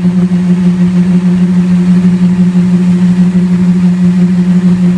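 Electric football vibrating test board ('pit') running with a loud, steady electric buzz, shaking two figure bases against each other in a push-strength test.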